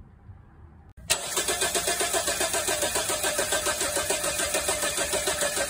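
Mazda B2200 pickup's four-cylinder engine cranking over on the starter with an even, rapid beat. It is tested for a no-start caused by low fuel pressure from a failing in-tank electric fuel pump. It cuts in suddenly about a second in.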